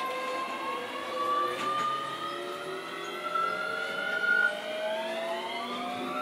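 Keio 7000 series electric commuter train accelerating, heard from inside the passenger car: several traction motor and gear whines rise steadily in pitch over the running noise.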